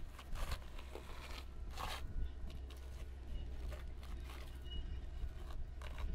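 Quiet outdoor ambience: a steady low rumble with scattered short rustles and crunches.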